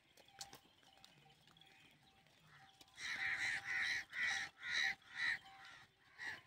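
A crow cawing loudly, about six caws in quick succession starting about halfway through, then one more near the end.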